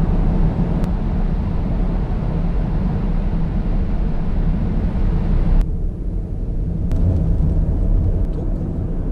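Steady low rumble of a car's tyres and engine while driving at speed, heard from inside the cabin. About halfway through, the higher hiss cuts off suddenly while the low rumble goes on.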